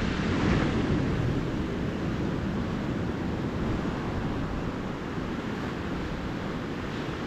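Calm ocean surf washing on a sandy beach: a steady, low wash of breaking waves that eases slightly after the start and then holds level.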